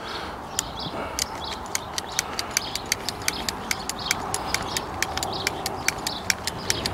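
Hand ratchet cable cutter clicking about three times a second as its handles are pumped, its blades closing through 6 mm three-core steel-wire-armoured (SWA) cable. The cut goes through easily.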